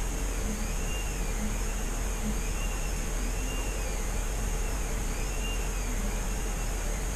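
Steady mechanical whir and hum from a running motor, with a faint high squeak that repeats about once a second.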